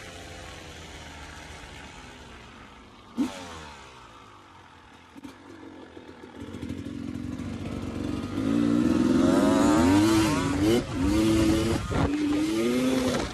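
Dirt bike engine easing off and running low for the first several seconds, with a single knock about three seconds in, then revving hard through the second half, its pitch rising and falling repeatedly before dropping away suddenly at the end.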